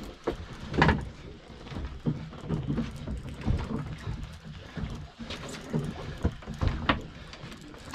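Scattered knocks and handling sounds from rod and reel on a small fishing boat, over a low rumble of wind and water.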